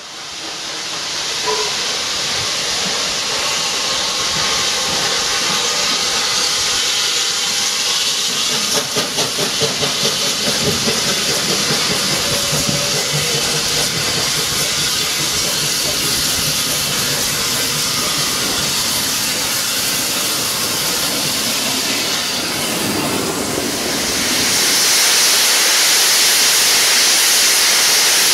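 USATC S160 2-8-0 steam locomotive arriving with a steady hiss of steam, with a short run of pulsing beats about nine to eleven seconds in. About 24 seconds in, a louder, higher steady hiss takes over as the standing engine blows off steam.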